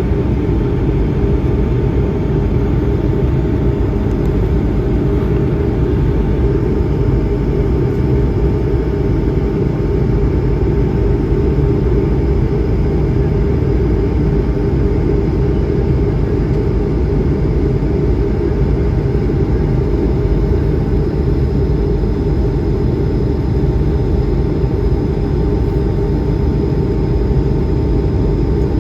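Steady cabin noise of an Airbus A220-100 heard from a window seat: a deep, even rush of engine and air noise with a few steady hums from its Pratt & Whitney PW1500G geared turbofans, unchanging throughout.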